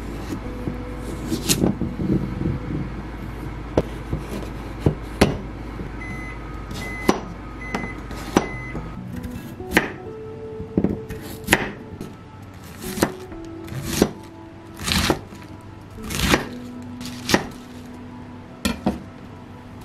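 A kitchen appliance hums steadily, beeps four times and falls silent about nine seconds in. Then comes a series of separate knocks and clunks of kitchen work, about one a second, over soft background music.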